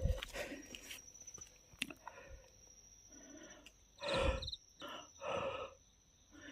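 Crickets chirping steadily in a high trill, with two short rushing noises about four and five seconds in.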